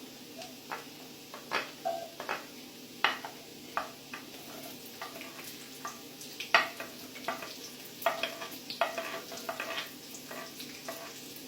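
Garlic and onion frying in oil in a pan with a steady soft sizzle, while a cooking utensil stirs, clicking and scraping against the pan at irregular moments, some clicks ringing briefly.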